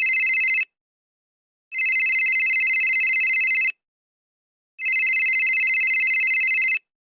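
Telephone ringing in a high, trilling ring that repeats: about two seconds on and one second off, with the end of one ring and then two full rings.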